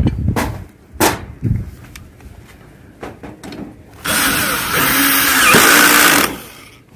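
A few knocks from the metal pipe fittings, then about two seconds of a power driver running, loud and even, as it tightens a clamp bolt on the pipe stand.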